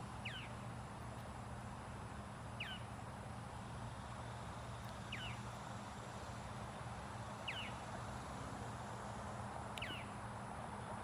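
A bird calling a short note that drops in pitch, repeated five times about every two and a half seconds, over a steady low hum.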